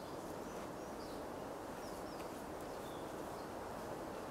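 Forest ambience: a steady low rushing hiss with several faint, short, high bird chirps scattered through it.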